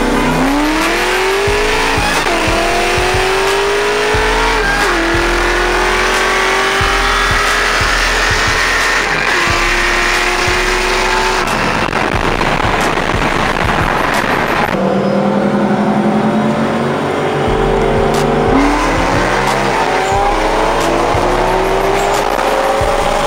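Car engine at full-throttle acceleration, its pitch climbing and then dropping at each upshift, about two and five seconds in, before holding a steady high cruise. It winds up hard again near the end. Heavy wind and road noise run underneath.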